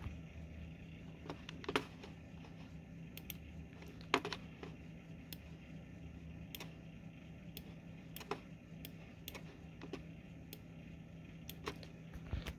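Scattered, irregular light clicks and taps over a steady low hum, the sharpest click about four seconds in.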